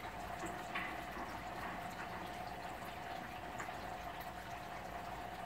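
Steady hiss with a faint even hum, the room's background noise, broken by a couple of faint clicks, about a second in and again past three seconds.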